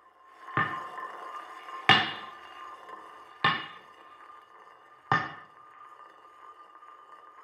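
Experimental electronic soundtrack: a steady droning tone with four sharp struck hits roughly every second and a half, each ringing out briefly, the second hit the loudest.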